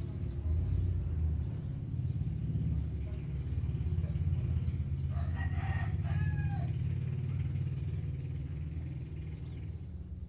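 A rooster crows once, about five seconds in: a single crow of roughly a second and a half that falls in pitch at the end, over a steady low rumble.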